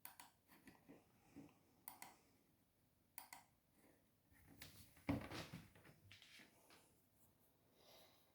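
Near silence broken by a few faint clicks, then one louder dull knock about five seconds in, with some soft handling noise after it.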